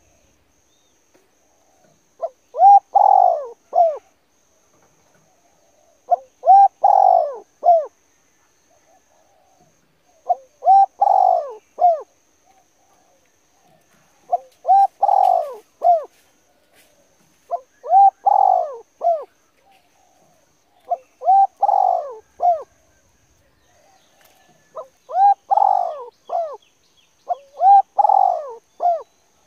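A bird calling the same short phrase of a few notes over and over, about eight times, every three to four seconds.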